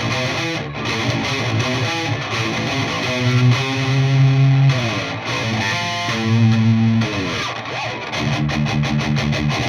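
Distorted seven-string electric guitar riffing through a high-gain amp with a Fortin 33 boost pedal engaged, which tightens the low end: low chugs and held notes, some sliding down in pitch about five and seven and a half seconds in, then fast chugging near the end.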